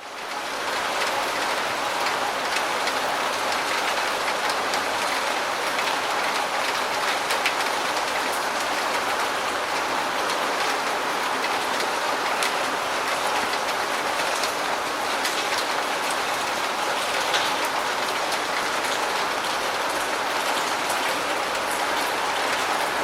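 Steady medium rain falling: a dense, even hiss of drops with many small individual drop ticks. It fades in over the first second.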